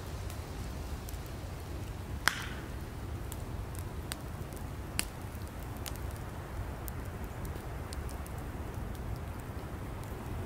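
Wood campfire burning, with a steady low rumble and scattered sharp crackles; one loud pop a little over two seconds in and a smaller one about five seconds in.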